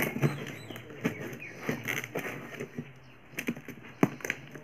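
A small knife scraping and slitting the clear packing tape on a cardboard box, with irregular scratches and crinkles of plastic and a sharp click about four seconds in.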